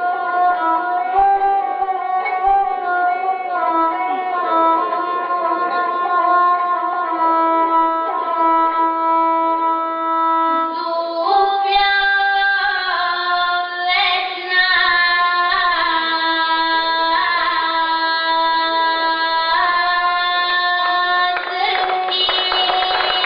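A gusle, the Serbian single-string bowed folk fiddle, played with its bow while a girl sings an epic song to it, her voice holding and sliding between notes.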